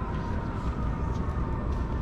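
Low city traffic rumble, with a steady high tone over it sliding slowly down in pitch.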